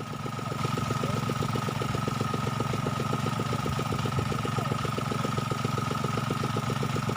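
A small engine running steadily at idle, with a quick, even pulse and a steady high whine over it.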